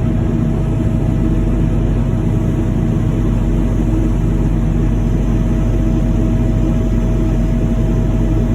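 Heavy machine's engine running steadily, a low continuous drone with a faint steady whine above it.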